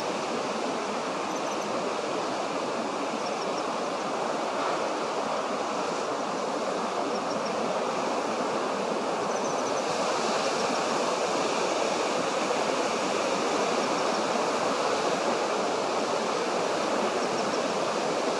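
Steady rushing of running water, getting a little louder about halfway through, with faint short high chirps every few seconds.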